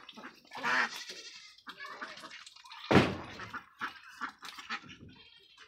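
Domestic ducks feeding at a bowl of muddy water, dabbling and slurping with their bills and giving short quacks. One loud, sharp sound comes about three seconds in.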